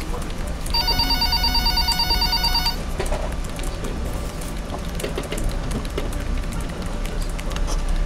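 Busy office ambience: a telephone rings with a rapidly pulsing electronic ring for about two seconds, starting just under a second in. Scattered keyboard clicks and faint talk follow, over a steady low hum.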